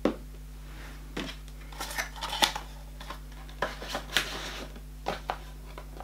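Hands handling small cardboard calendar boxes and packaging: a sharp click at the start, then irregular crackly rustles and scrapes.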